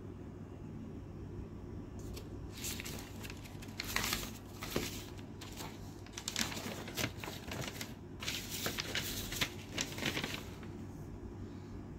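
Paper rustling and crinkling as a folded paper instruction manual is handled and flipped over, in irregular bursts starting about two seconds in and dying away near the end. A low steady hum runs underneath.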